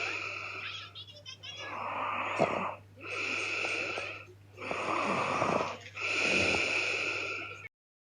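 A woman snoring loudly in her sleep: five rasping, wheezy breaths in and out, each about a second long, before the sound cuts off abruptly into silence near the end.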